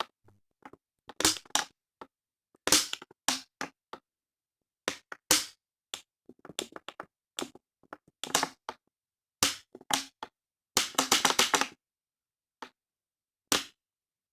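A door lock or latch being worked open, giving an irregular series of short, sharp cracks and rattles with pauses between them and a dense run of them about eleven seconds in.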